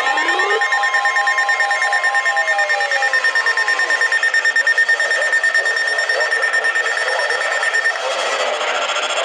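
Several NOAA weather radios alarming at once: overlapping steady alert tones, pulsing beeps and sweeping siren-like tones. The steady tones drop out and the mix changes about eight seconds in.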